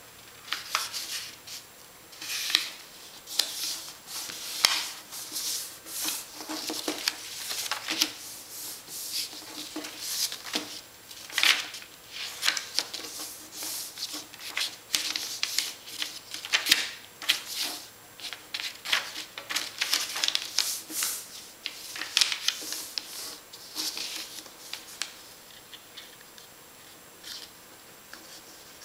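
A sheet of paper being folded by hand: irregular crisp rustles and swishes as the paper is flipped and the creases are pressed and run flat with the fingers.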